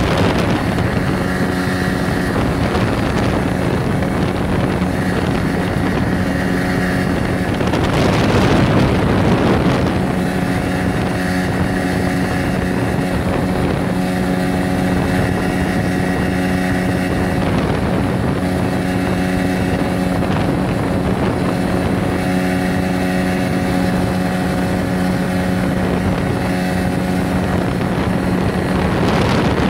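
Golfstream (Parsun) T8 two-stroke 8 hp outboard motor running steadily under way, with wind and water rushing past. A louder rush of noise comes for a couple of seconds about eight seconds in.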